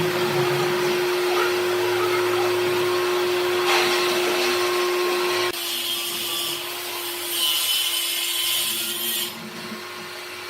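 Electric power tool running steadily while working wood, with a steady motor hum; the sound changes abruptly about five and a half seconds in.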